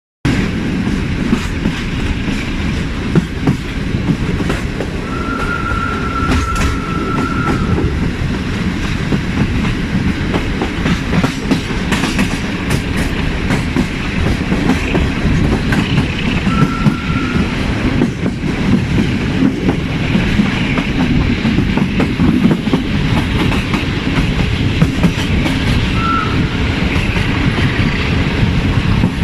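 A moving passenger train's wheels rumbling and clicking over the rail joints without a break. A single high steady tone sounds three times over it: for about two seconds around five seconds in, briefly near seventeen seconds, and very briefly near twenty-six seconds.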